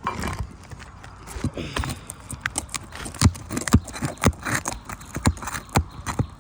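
Irregular knocks, taps and scrapes on asphalt roof shingles as they are worked loose to break their seal; the shingles are very brittle.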